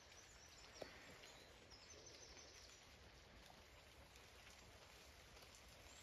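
Near silence: faint outdoor field ambience with a single soft tick a little under a second in.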